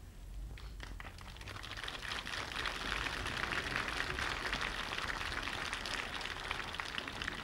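Crowd applauding: many hands clapping, swelling over the first couple of seconds, then holding.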